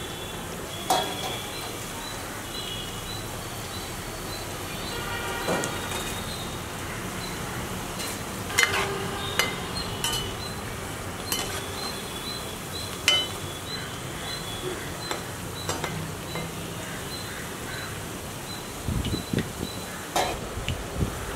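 Cauliflower pieces deep-frying in hot oil in a kadai: a steady sizzle, with a metal spoon clinking and knocking against the pan every second or two as the pieces are stirred.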